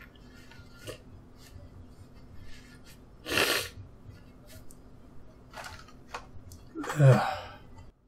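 A man sneezing twice: once about three seconds in, and again, louder, about seven seconds in. Faint short clicks are scattered between the sneezes.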